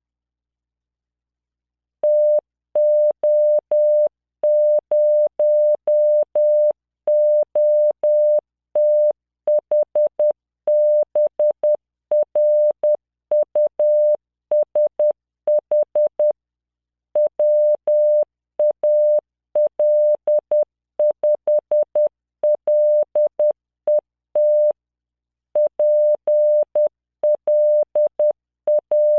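Morse code at 10 words per minute: a 600 Hz tone keyed on and off in dots and dashes, generated by LearningMorse CW training software and sending practice words. The sending starts about two seconds in, with short pauses between words.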